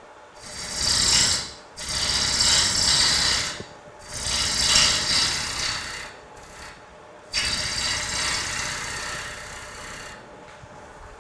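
Swept-back bowl gouge cutting the outside of a spinning Bradford pear bowl blank on a wood lathe: a rough shaving noise in four passes, each a second or two long, with short pauses between, as the bowl is rough-shaped.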